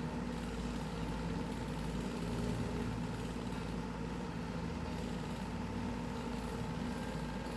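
Steady mechanical hum, like a motor or engine running, at an even level with no change.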